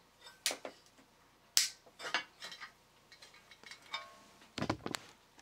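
Sharp clicks and light metallic clinks as a tinplate toy body and a small magnet holding a nickel tab are handled and positioned, with a few heavier knocks near the end.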